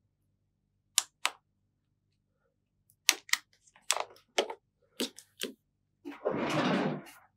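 Small sharp clicks and taps of hands working inside an opened iPhone 7 as its battery is disconnected and lifted out. Two clicks come about a second in, then a run of clicks and taps, and a rustle lasting about a second near the end.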